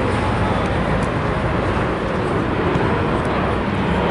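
Steady outdoor background noise: a dense, even rumble and hiss with a few faint ticks.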